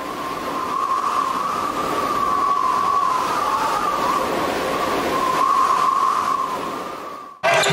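Roaring, howling wind sound effect of a tornado, with a wavering whistle held near one pitch over the roar. It swells up at the start and cuts off abruptly near the end, where gym sound takes over.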